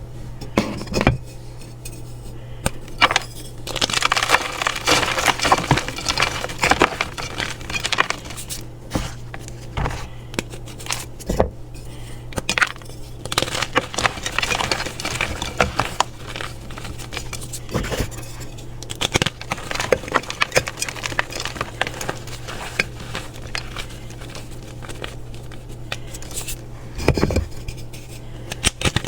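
Crunchy reformed blocks of dyed pressed powder being crushed and broken, giving irregular crisp crackling crunches and snaps, with a steady low hum underneath.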